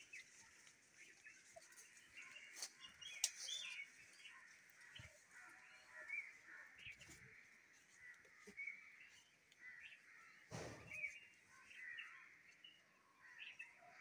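Faint, scattered short bird chirps, with a sharp click about three seconds in and a dull thump about ten and a half seconds in.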